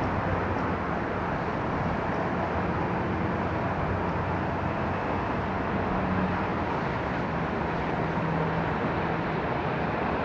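Steady rushing noise of strong wind and heavy rain, with a faint low hum underneath.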